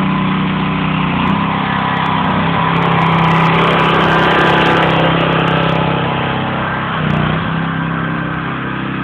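Gasoline pressure washer engine running steadily, its pitch dropping slightly about a second in and wavering again near seven seconds, with a louder hiss swelling in the middle.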